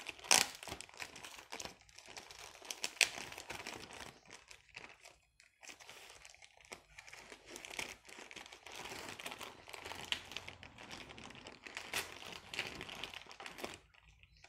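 Packaging of a boxed computer mouse being unwrapped by hand: irregular crinkling and crackling, with a few louder crackles and a short lull about five seconds in.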